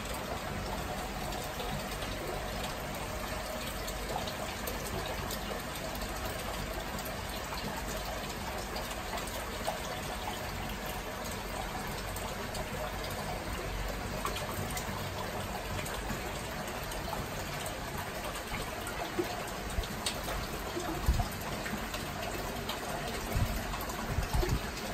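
Steady trickling and bubbling of water in a home aquarium, from the air bubbles and the water circulation. A few dull low knocks come near the end.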